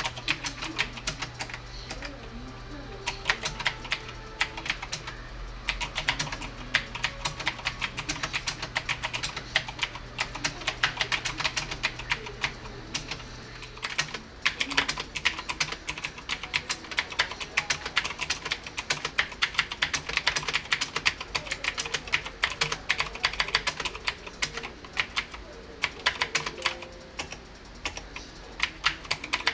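Cherry G80-3000 mechanical keyboard with Cherry MX Blue switches being typed on: fast runs of crisp key clicks broken by a few short pauses.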